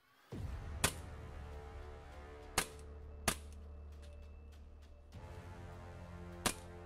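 A full-metal gas blowback airsoft replica of the Kimber Rapide 1911 pistol fires four sharp shots, spaced unevenly, with background music underneath.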